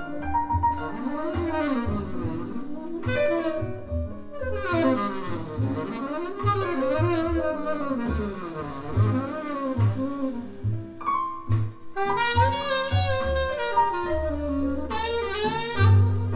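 Jazz quartet music: a tenor saxophone plays a gliding melody over piano, bass and drums, played back through Bowers & Wilkins 706 S3 speakers.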